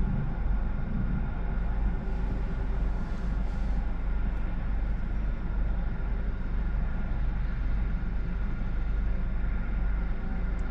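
Steady low vehicle rumble with faint steady hums over it, unchanging throughout.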